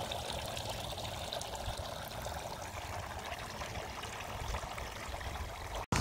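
Water trickling and pouring steadily from the bowls of a tiered outdoor garden fountain into its basin, with a brief break just before the end.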